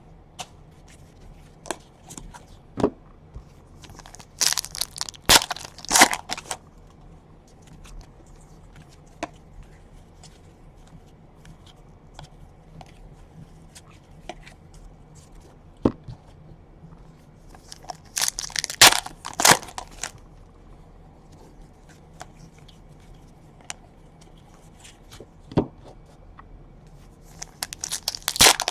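Donruss baseball card pack wrappers being torn open and crinkled, in three short rustling bursts (about 5 s in, about 19 s in, and near the end), with faint ticks of cards being handled between them.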